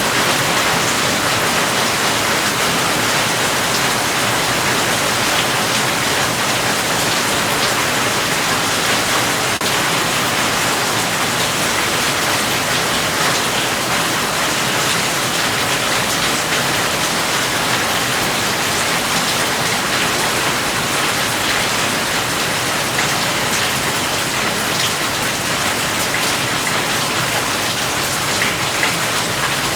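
Steady rain falling: an even hiss with a fine patter of drops, unchanging in level.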